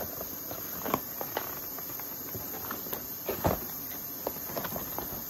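Cardboard box and packaging being handled and pulled open, with scattered crinkles, taps and knocks; the loudest knock comes about three and a half seconds in.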